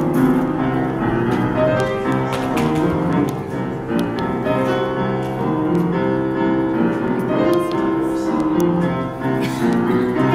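Instrumental piano music playing, with steady held chords.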